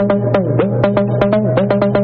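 Electronic dance music: a fast, even run of synthesizer notes, about six or seven a second, over a steady sustained bass.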